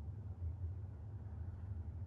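Quiet room tone: a steady low hum with faint background noise and no distinct handling sounds.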